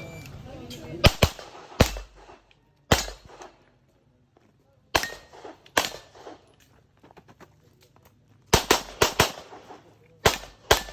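Single-stack pistol fired in quick strings: about a dozen shots, in pairs and clusters of up to four, with pauses of one to three seconds between clusters.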